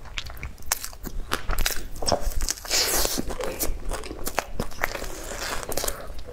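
Close-miked chewing of a crispy flatbread topped with meat floss and seaweed: irregular crunches and crackles, densest about three seconds in.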